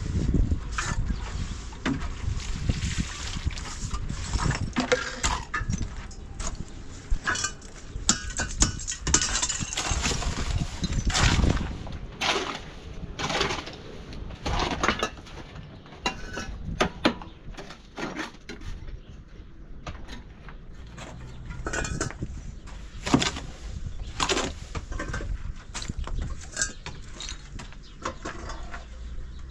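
Irregular knocks, clinks and scrapes of hard building materials being handled and set down.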